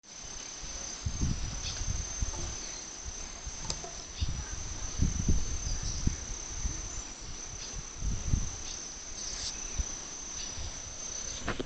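Insect chirring: one steady high-pitched tone that never lets up. Several dull low thumps and a couple of sharp clicks come through over it.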